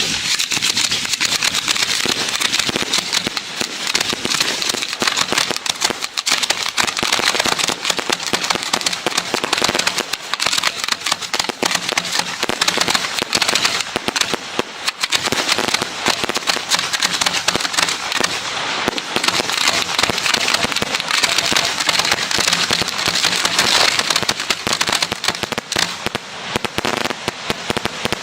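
Lit pyrotechnic fusee (hand flare) burning close by with a loud, steady sputtering crackle and hiss; it catches suddenly just before and keeps burning without a break.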